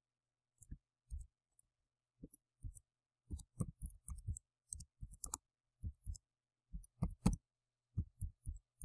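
Computer keyboard being typed on: a run of short, irregular key clicks as a phrase is typed.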